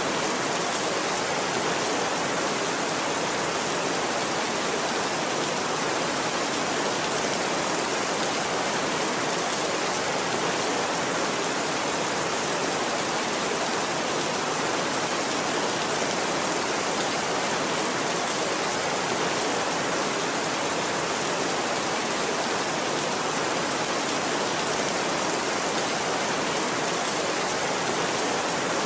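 Steady heavy rain falling, an even unbroken hiss at a constant level with no thunder or separate drips standing out.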